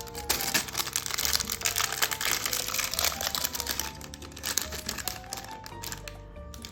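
Plastic Lego parts bags crinkling as they are torn open, densest in the first three to four seconds, over background music with a melody.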